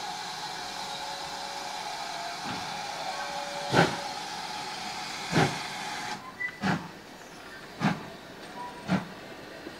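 GWR tender steam locomotive moving off slowly. Steam hisses steadily, then cuts off about six seconds in, and slow exhaust beats come about one a second.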